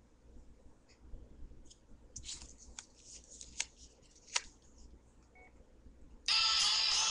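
Faint clicks of a mobile phone being operated to pick the next ringtone, with a short beep, then a ringtone starts playing loudly from the phone's speaker about six seconds in.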